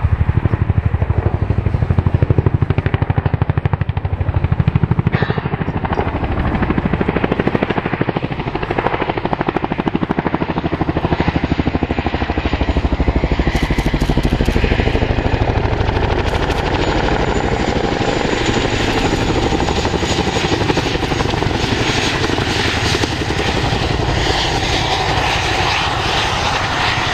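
Boeing Chinook tandem-rotor helicopter flying close by, its twin rotors beating in a rapid, steady throb over the run of its turbine engines. A faint high whine comes in about halfway through.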